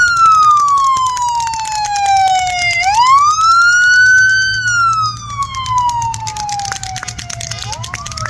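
Police car siren on wail: slow rising and falling pitch sweeps, about one every three seconds, growing fainter after about five seconds as the car passes.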